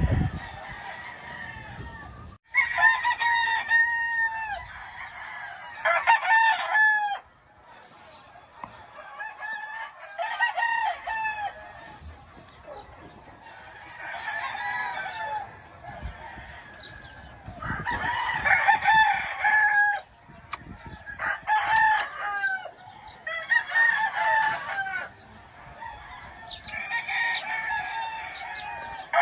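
Game roosters crowing one after another, about eight crows in all, some loud and some fainter.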